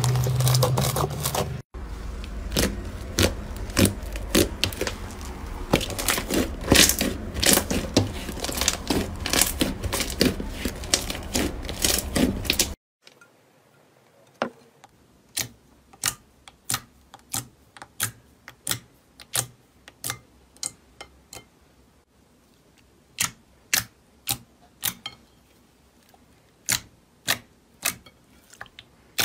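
Slime being squeezed and worked by hand, with dense crackling and popping clicks. About halfway through, after a cut, it switches to sharp single clicks roughly twice a second with quiet between them.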